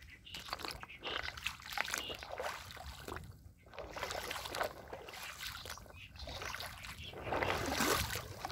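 Shallow river water sloshing and trickling over rounded stones, in uneven surges that swell and fade every second or so, loudest near the end.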